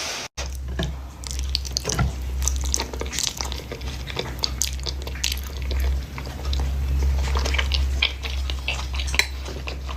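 Close-miked eating of saucy, creamy instant noodles: wet smacking, slurping and chewing in many short clicks, over a steady low hum.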